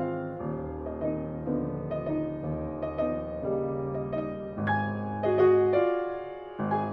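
Instrumental background music led by piano, with sustained notes over a low bass line.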